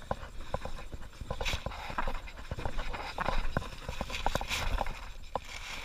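Paddling a plastic sit-on-top kayak in shallow water: irregular hollow knocks and clicks, several a second, of the paddle and hull, with short splashes of the blade.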